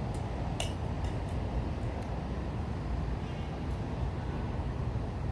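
Steady low rumbling background noise, with a single sharp click about half a second in and a few fainter clicks.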